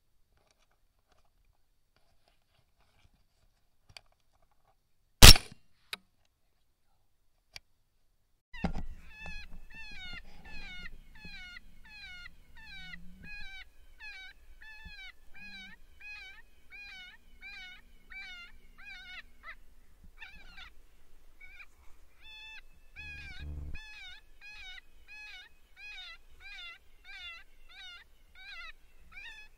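A single loud, sharp bang about five seconds in, then a long run of identical high, mewing distress cries at about two a second, pausing briefly and resuming, from an electronic predator call used to lure coyotes.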